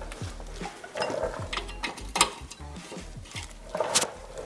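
Metal clinks and knocks of hand tools against steel car parts, with a few sharp strikes about one, two and four seconds in.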